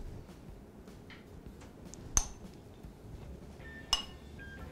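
Two light clinks of a glass mixing bowl against a plate as salad is tipped out of it, about two seconds in and again about four seconds in, the second ringing briefly.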